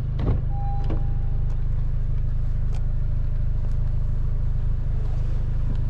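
A Honda Civic Type R FK8's turbocharged 2.0-litre four-cylinder is idling with a steady, deep exhaust rumble. Two clicks from the driver's door handle and door come in the first second, with a short beep just after.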